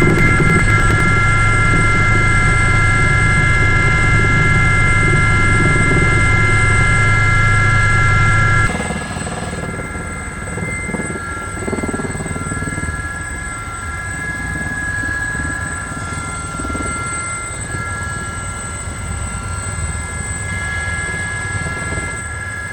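Aérospatiale Gazelle helicopter's turboshaft engine and rotors running: a steady, loud high whine over a low drone. About a third of the way in the sound drops abruptly to a quieter run of the same whine without the low drone.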